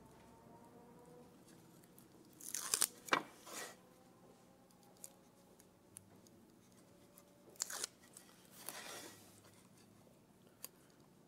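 A knife scraping and rubbing against double-sided carpet tape stuck on a wooden straightedge, pressing the tape down so its pressure-sensitive adhesive grips the wood. It comes as two clusters of short scratchy strokes, about two and a half seconds in and again about eight seconds in, with a few faint ticks between.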